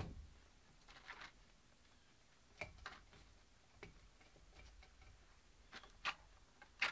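Scattered sharp clicks and small knocks, about eight in all and unevenly spaced, from camp-stove gear being handled while the stove is being tried. No hiss of gas is heard: the cold, half-empty isobutane-propane canister is giving out no gas.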